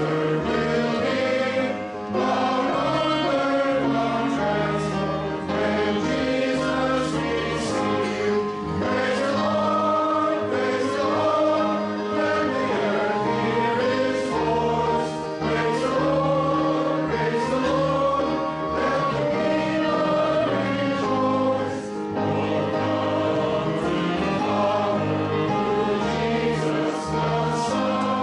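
A choir singing a Christian hymn over a steady instrumental accompaniment.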